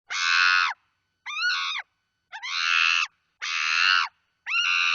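Chimpanzee screaming: five shrill, high-pitched screams about half a second each, in quick succession with short pauses between them.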